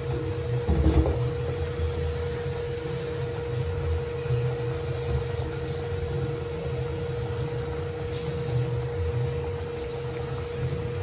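Thick tamarind chutney boiling and bubbling in a pot on a gas burner as a silicone spatula stirs it, over a steady hum. A short bump about a second in.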